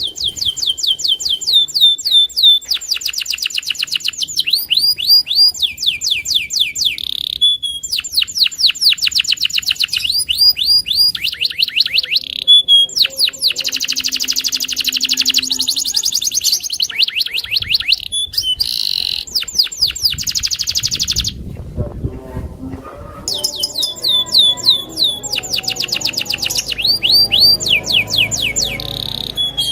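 Domestic canary singing a long, nearly unbroken song of fast trills, each phrase a rapid run of repeated high notes. It pauses briefly about two-thirds of the way through, when a low rumble is heard, then sings on.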